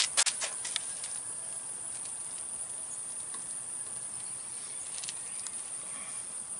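Several sharp metal clicks and clinks in the first second as the slack adjuster and brake parts are handled on the S-cam, then a couple of faint clicks about five seconds in, over a steady high-pitched hiss.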